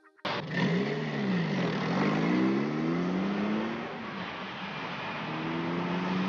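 Two small cars, a 1966 Renault 10 in front with another car chasing close behind, driving fast with their engines revving. The engine note cuts in suddenly and climbs in pitch several times as they accelerate, over steady road noise.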